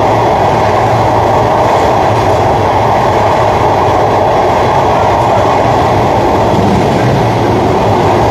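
Broad-gauge passenger train running over a steel truss bridge, heard from an open coach door: a loud, steady rumble and rush of wheels on the rails.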